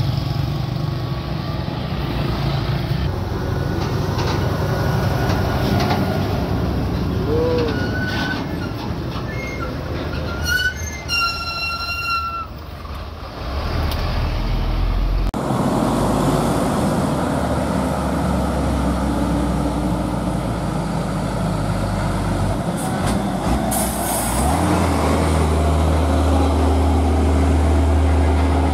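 Road traffic with heavy trucks and motorcycles heard while riding: engines, tyre and wind noise, with a brief high squeal about eleven seconds in. After a cut, a loaded flatbed truck's diesel engine gives a steady low drone as it passes, strongest near the end.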